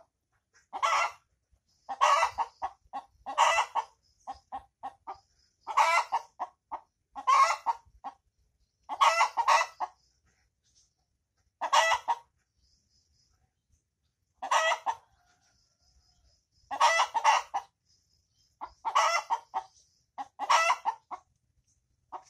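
Hen's egg-laying cackle: runs of short clucks, each run ending in a loud, drawn-out squawk. The call repeats about a dozen times, every second or two, with a couple of short pauses.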